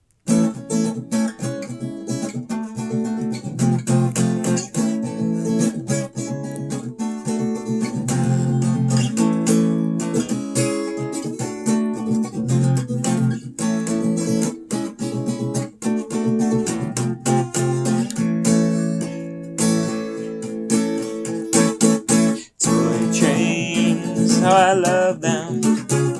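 Acoustic guitar strummed in a steady rhythm as the instrumental opening of a song. It breaks off briefly about three-quarters of the way through, and a wavering voice comes in over the guitar near the end.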